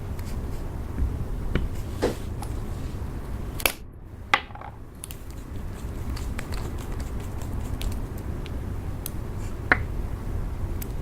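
Slime being handled and squished, with scattered small sticky clicks and pops over a steady low rumble. The sound drops briefly about four seconds in.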